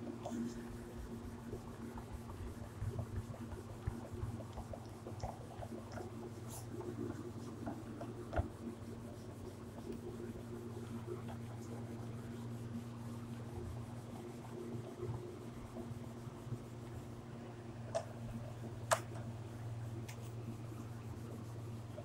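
A whiteboard being wiped clean with a duster: soft, repeated rubbing strokes on the board's surface, with a couple of sharp taps near the end. A steady low hum runs underneath.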